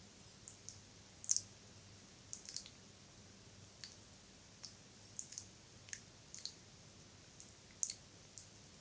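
Close-miked ASMR wet mouth sounds: soft, irregular clicks and smacks, about one or two a second.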